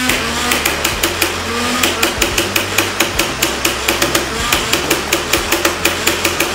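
Nerf Rival Nemesis blaster firing on full auto: a rapid, regular string of shots, about five or six a second, over the steady hum of its flywheel motors.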